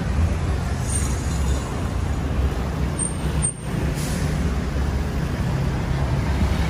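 Street traffic, with a van's engine running close by as a steady low rumble. Two brief high squeaks come about three seconds in.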